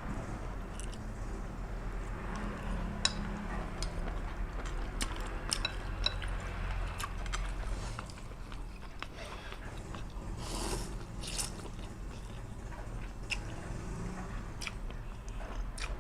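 Close-up eating sounds: chewing and biting, with many short wet mouth clicks and a couple of longer, louder noisy bursts a little past the middle, over a steady low hum.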